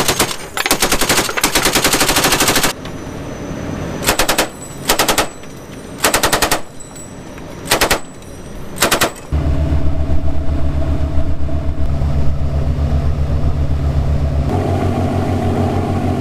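Boat-mounted machine gun firing: a long stretch of rapid fire for the first three seconds or so, then five short bursts about a second apart. About nine seconds in the gunfire gives way to the steady low drone of a patrol boat's engines running, which changes pitch near the end.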